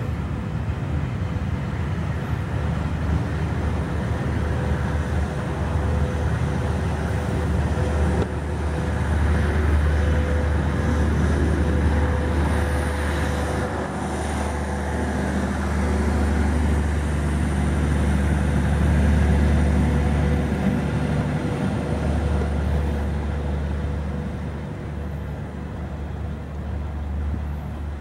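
LNER Peppercorn A1 Pacific 60163 Tornado working hard as it pulls its train away, its three-cylinder exhaust mixed with the rumble of the coaches over the pointwork. The sound eases a little near the end as the train draws off.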